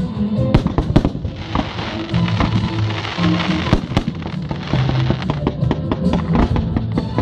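Fireworks going off in rapid bangs and crackles, over steady music playing along with the display.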